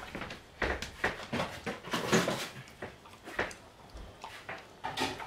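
A Dalmatian eating from its food bowl: irregular chomping and crunching of dry kibble and meat cubes, several bites a second.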